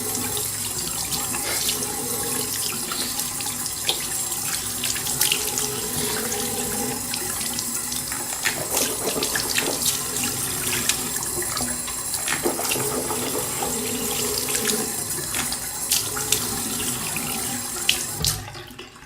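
Water tap running into a bathroom sink, with scattered small splashes and clicks; it dies away near the end.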